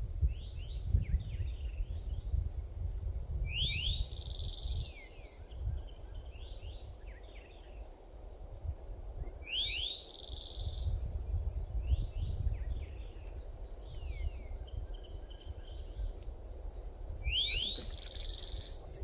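A songbird repeating the same short phrase of quick sliding notes three times, about every seven seconds, with fainter chirps between. Under it runs a low rumbling background noise that swells and fades.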